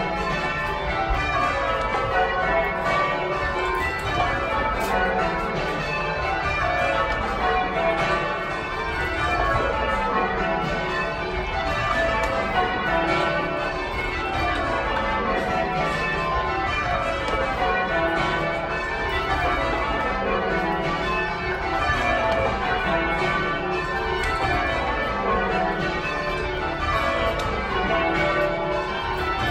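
A ring of church bells with a 30 cwt tenor in D, rung full circle in English change-ringing style: the bells strike one after another from the highest to the deepest in repeated descending rows, every couple of seconds.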